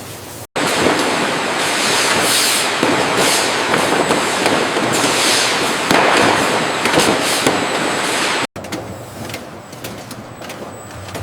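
Factory machinery clattering and hissing: a loud, dense crackling clatter with repeated swells of hiss, cut in and out abruptly, with quieter ticking machine noise before and after.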